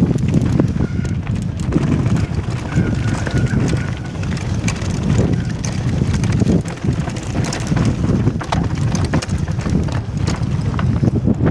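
Mountain bike running fast down a rocky trail: a constant low rumble of wind on the helmet-mounted camera's microphone, with the rattle and clatter of tyres and frame over loose stones throughout.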